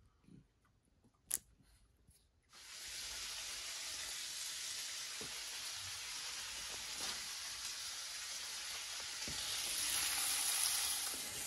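Sausages sizzling in a hot frying pan, a steady hiss that grows a little louder near the end. It starts after about two and a half seconds of near silence broken by a single click.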